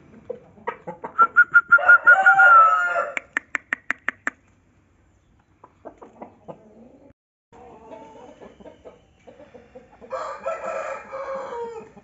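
Roosters crowing: a loud, held crow about a second in, followed by a quick run of sharp clicks, and a second, rougher crow near the end that falls in pitch as it finishes.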